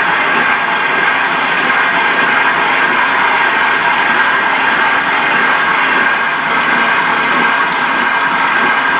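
KitchenAid stand mixer running its food-grinder attachment, grinding partly frozen cubed pork and bacon: a steady motor whine with one constant high tone over an even whirr.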